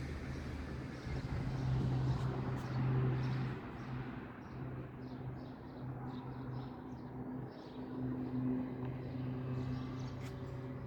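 A steady engine drone, swelling louder about two seconds in, with small birds chirping over it through the second half.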